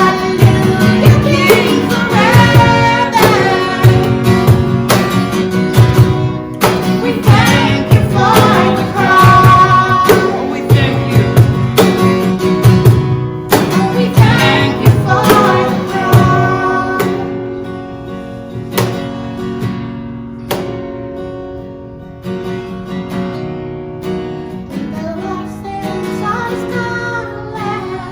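Worship band music: acoustic guitar with singing over it, growing quieter and sparser about two-thirds of the way through.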